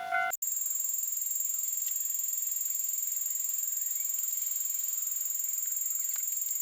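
A level-crossing alarm bell dings twice, each ding fading. A fraction of a second in it cuts off, and a steady high-pitched whine with a slight flutter takes over.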